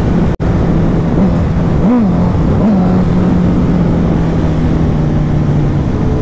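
Honda CBR650F's inline-four engine cruising at a steady speed, a steady drone with a few small rises and falls in pitch around two seconds in, under heavy wind and road rush. The sound cuts out for an instant about half a second in.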